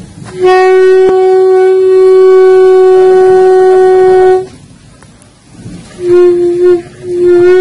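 Plastic toy horn blown hard on one steady, buzzy note: a long blast of about four seconds, then, after a pause, two shorter blasts near the end.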